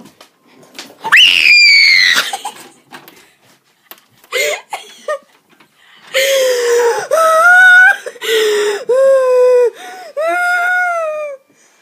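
Screaming and wailing: a rising shriek about a second in, a couple of short cries near the middle, then a run of five or so loud wavering wails in the second half.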